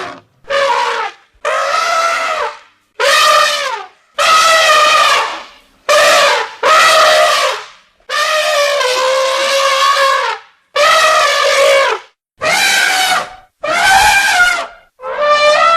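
Elephant trumpeting: a series of about a dozen loud, brassy calls, each from half a second to two and a half seconds long, bending in pitch, with short gaps between them.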